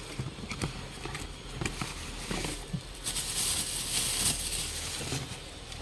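Cardboard box handled with light knocks and scrapes, then a thin plastic bag crinkling for about two seconds as a wrapped toy alarm clock is pulled out of it.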